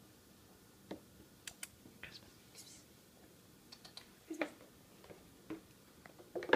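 Irregular light clicks and taps of a kitten's claws and paws on a hardwood floor as it pounces and scrambles at a dangled string, the loudest near the end as it rears up.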